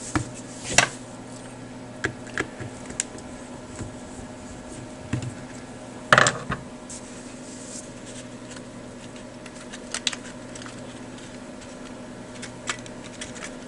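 Handling clicks and taps from a plastic multimeter case and its circuit board being worked apart by hand: a few scattered sharp clicks, with a louder knock about six seconds in.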